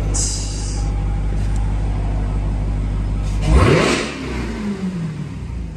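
Jeep Grand Cherokee Trackhawk's supercharged 6.2-litre Hemi V8 idling steadily, then revved hard once about three and a half seconds in, its pitch climbing sharply and falling back toward idle. A brief high hiss comes near the start.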